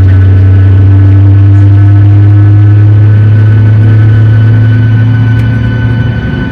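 Airliner cabin noise: the engines make a loud, steady low drone with a few higher whining tones, one of them slowly rising. Near the end it gives way to a rougher rushing noise.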